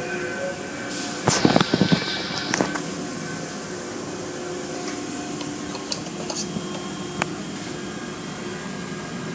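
Automatic tunnel car wash heard from inside the car: a steady rush of machinery and water spray with a low hum. A cluster of loud knocks comes about a second and a half in, and a few lighter ticks come later.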